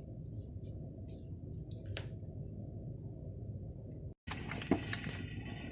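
Automatic transmission fluid being pumped through vinyl tubing into the transmission's fill hole: a steady low rumble with faint squishing and a few small clicks. Just after four seconds in the sound cuts out briefly, then comes back as a brighter, hissing run of liquid.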